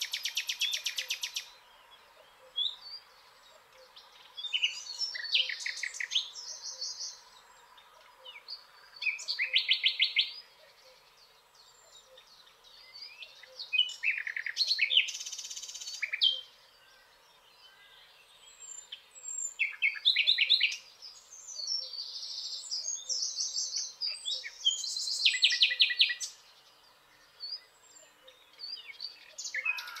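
Dawn chorus of songbirds: repeated trilled and warbling song phrases a second or two long, coming in bursts every few seconds with short pauses between them.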